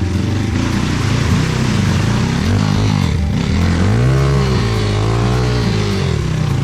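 Trail motorcycle engine running under load, the revs rising and falling as the throttle is worked, with the biggest rise and fall a little past the middle.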